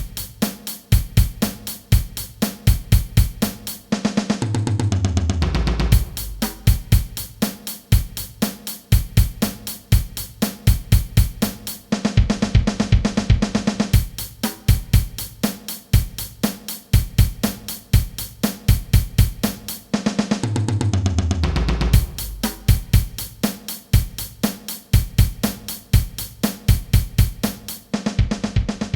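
A drum kit plays a repeating groove of bass drum, snare and hi-hat, with cymbals. Twice the groove breaks into a fill of falling low drum strokes, the second time as the passage comes round again on the D.C. repeat.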